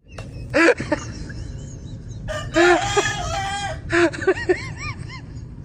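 A rooster crowing: a brief call, then one long crow, followed by a few short, quick calls.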